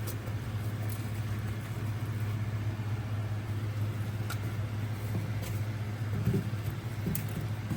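A steady low hum, like a small motor or kitchen appliance running, with a few light clicks and taps over it.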